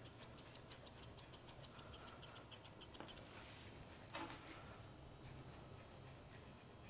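Grooming scissors snipping quickly through a dog's long coat, a faint, even run of about five or six snips a second that stops about three seconds in.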